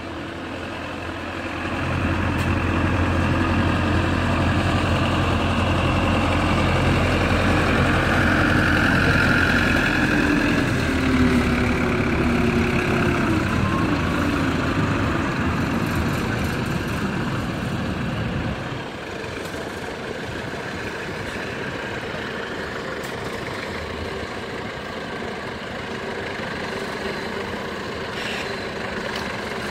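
John Deere 6115M tractor's diesel engine working hard under load, pulling a weight sled; it comes up loud about two seconds in, holds for some sixteen seconds, then drops away sharply. After that only a quieter, steady engine idle remains.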